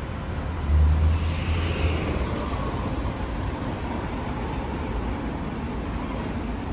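Steady street and traffic noise beside a standing Alstom Citadis X05 tram, with a low rumble that swells about a second in and fades away a second later.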